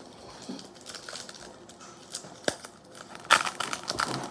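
Foil wrapper of a Yu-Gi-Oh! booster pack crinkling in the fingers and being torn open. Scattered light crackles give way to a louder burst of crackling and tearing about three seconds in.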